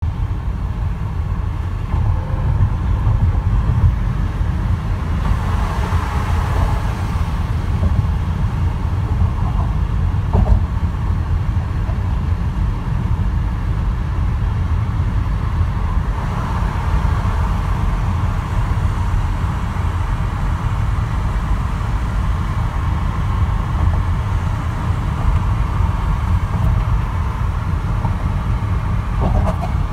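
Road noise inside a moving car's cabin: a steady low rumble of tyres and engine while driving at a steady speed.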